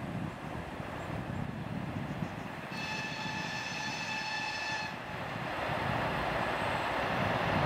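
2TE10Uk diesel locomotive at the head of a freight train gives one steady horn blast of about two seconds, some three seconds in, over the noise of its engines and wheels, which grows louder as it approaches.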